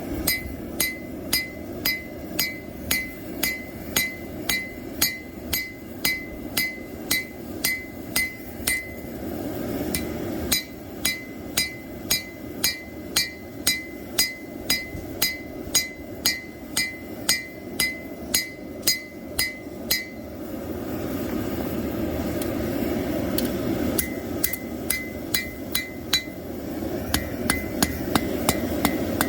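Hand hammer striking hot plow-disc steel on an anvil, about two blows a second, each with a short metallic ring, as the knife blade is straightened and drawn out. The hammering pauses briefly about a third of the way in, stops for a few seconds about two-thirds in, then resumes with lighter blows, over a steady low rushing noise.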